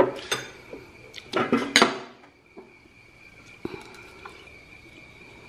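Metal spoon and chopsticks clinking against ceramic bowls and plates: a couple of sharp clinks at the start and a quick cluster between one and two seconds in, then only a few faint taps.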